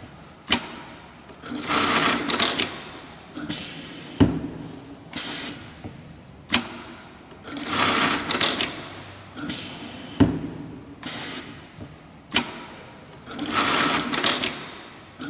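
Single-needle automatic pattern sewing machine stitching in short rapid runs of about a second each. Each cycle of roughly four seconds is marked by one sharp clack.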